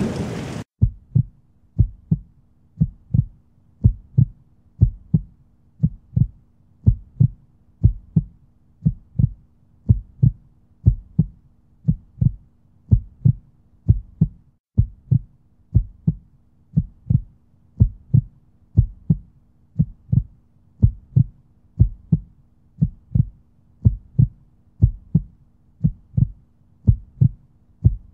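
Rain noise cuts off under a second in. Then a steady, even beat of low thuds, about two a second, like a heartbeat, runs over a faint held low hum: a backing track laid under the slow-motion storm footage.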